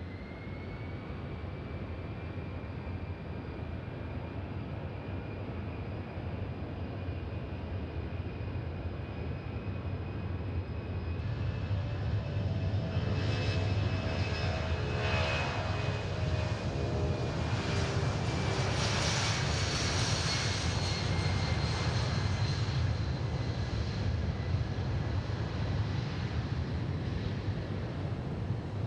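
C-17 transport jet's four turbofan engines running: a high, steady whine over a low rumble, growing louder toward the middle and staying loud.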